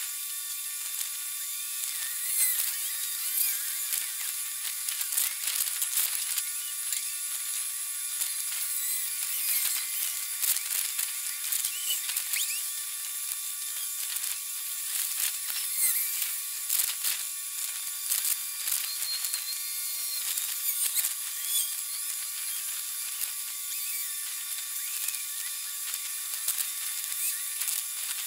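Dockside sound sped up forty-fold with the time-lapse: a high, buzzing chatter full of quick chirps and frequent clicks over a steady thin tone, with nothing low left in it.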